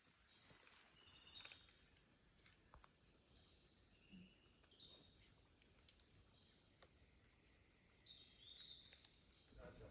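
Faint steady high-pitched insect drone, with a few short faint chirps now and then.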